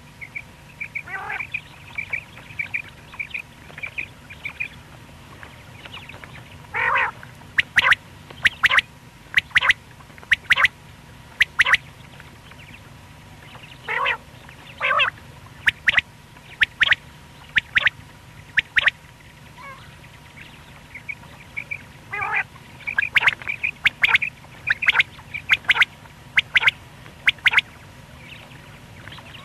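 Male common quail calling: sharp, clipped call notes repeated in quick runs, with a few lower sliding notes in between, over a faint steady hum.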